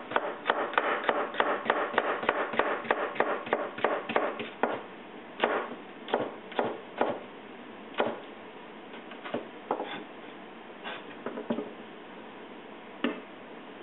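Kitchen knife slicing green bell peppers into thin strips on a plastic cutting board: quick, even knife strokes at about five a second for the first four or five seconds, then slower, scattered single cuts.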